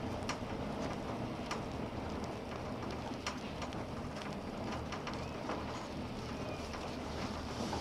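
Interior of a Poma eight-seat detachable gondola cabin travelling along its haul rope: a steady low hum and rumble with scattered light ticks and taps.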